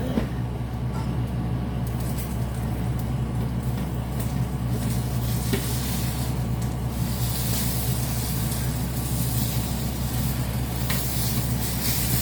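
Food frying in hot oil in a pan, sizzling steadily; the sizzle grows louder and hissier about seven seconds in. A steady low hum runs underneath.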